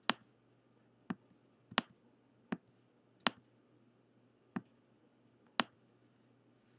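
Computer mouse button clicking: seven sharp single clicks at uneven gaps of about a second, pressing and releasing to drag items on screen.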